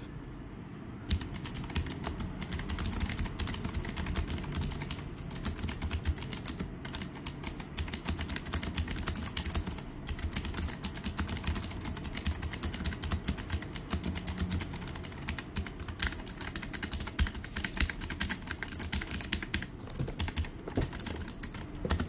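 Rapid, continuous typing on a mechanical keyboard fitted with Outemu box blue switches, the NYK Nemesis Saber MKN-02. The keystrokes are clicky and begin about a second in.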